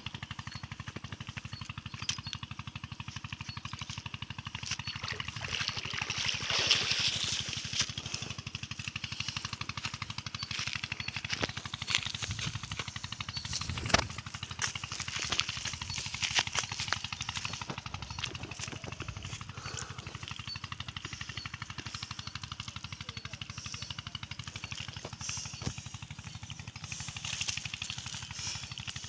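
A small engine running steadily in the background, a rapid low putter, with a few sharp knocks on top.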